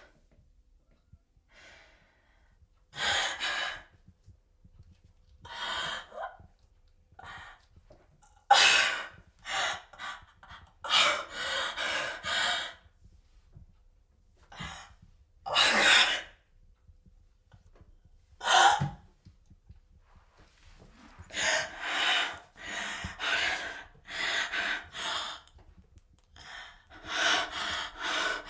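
A woman gasping and breathing hard in distress, in uneven bursts with quiet pauses between them.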